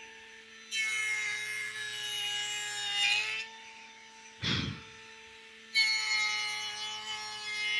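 Table-mounted 2-horsepower router with a raised-panel bit, running at reduced speed and cutting the edge of a panel board on the first pass. The cut runs about a second in for nearly three seconds, then again from about six seconds in, with a knock between the two cuts.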